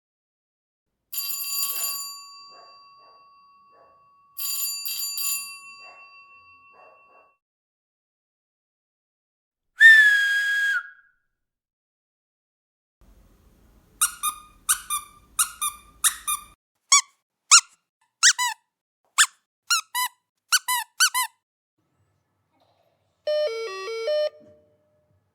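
A string of prank sound effects: two bell-like chimes that ring out and fade, a single squeak about ten seconds in, then a quick run of about a dozen short falling chirps, and a brief stepping electronic tone near the end.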